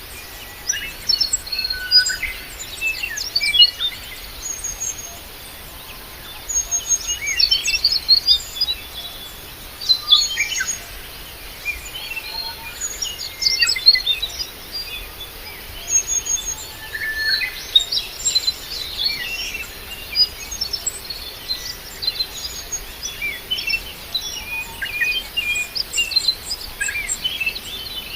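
Several small birds chirping and twittering: quick high-pitched chirps and short sweeping notes that come in busy bouts every few seconds, over a steady outdoor hiss.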